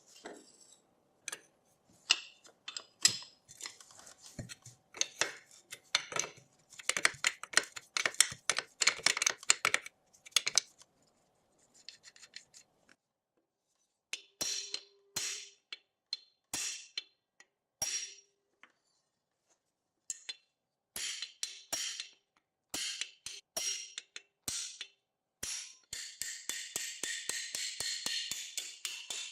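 Hand tools and small metal parts clicking and clinking while a rusted mini dirt bike is taken apart: scattered single knocks, with rapid runs of clicking partway through and near the end.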